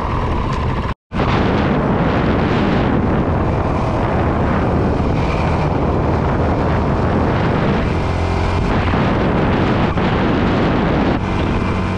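Honda CRF450RL single-cylinder four-stroke engine running as the dirt bike rides along a gravel road, with a dense rumble of wind over the onboard microphone. The sound breaks off for an instant about a second in.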